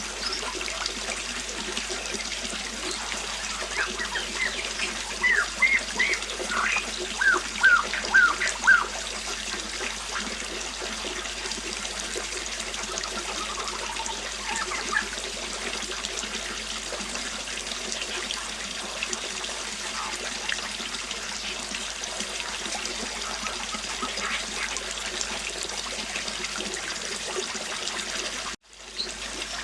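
River water flowing steadily with songbirds chirping over it, a run of quick chirps in the first third and only scattered calls after. The sound cuts out for a moment near the end.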